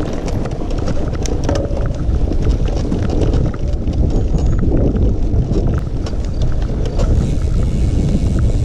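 Mountain bike ridden over rough ground, filmed by a camera on the bike or rider: a steady low rumble of wind buffeting the microphone, with frequent rattling clicks and knocks from the bike.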